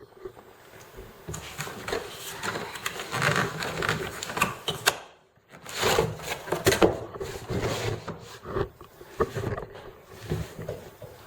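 Packaging and a plastic tool case being handled and pulled out of a box: irregular scrapes, rustles, knocks and clicks. There is a short pause about five seconds in, followed by the loudest knocks.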